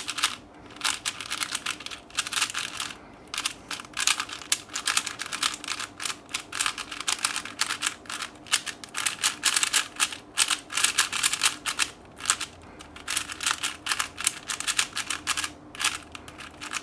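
Aosu WR 4x4 speed cube being turned rapidly by hand: a fast clatter of clicking plastic layers, with a few short breaks.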